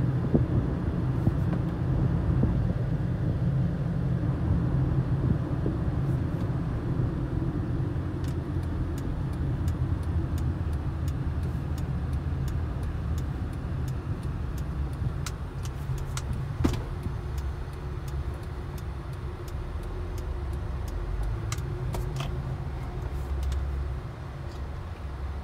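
Road and engine noise inside a moving car's cabin: a steady low rumble with a few faint clicks, getting a little quieter near the end.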